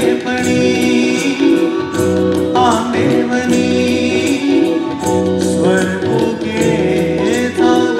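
A man singing a Marathi song live, on long held notes with a wavering run about a third of the way in. Instrumental accompaniment plays under him, with a steady beat of percussion ticks.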